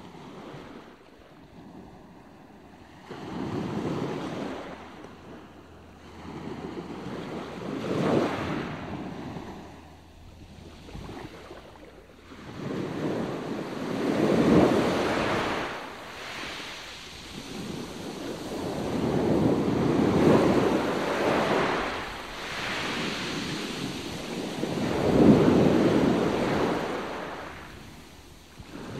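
Sea waves washing, with wind on the microphone, swelling and fading in surges every four to six seconds.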